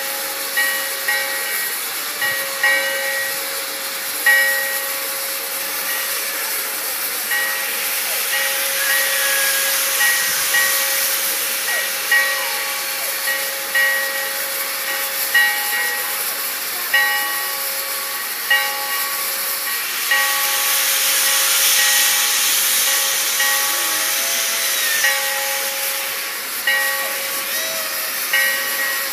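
Sierra Railway No. 3 steam locomotive standing with steam up: a steady hiss of escaping steam under a steady hum-like tone, with short pulses repeating about once a second.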